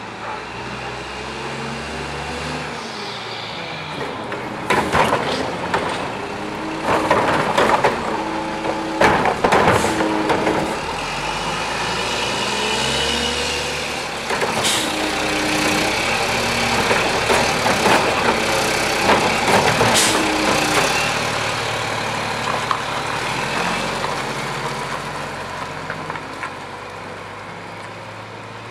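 Mack LE front-loader garbage truck working a Curotto-Can automated arm: the diesel engine revs under hydraulic load with a whining pump while carts are lifted and dumped, with several sharp clanks and bangs through the middle. Near the end the truck's sound fades as it pulls away.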